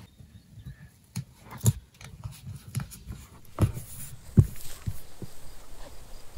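A handful of irregular soft thumps and knocks over light rustling, the sharpest thump a little past the middle.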